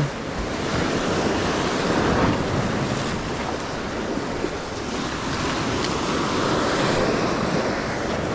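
Sea surf washing against the jetty in slow swells, with wind buffeting the microphone.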